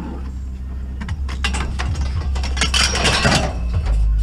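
Metal poles clanking and rattling as they are handled and loaded, loudest about three seconds in, over the steady low rumble of an idling van engine.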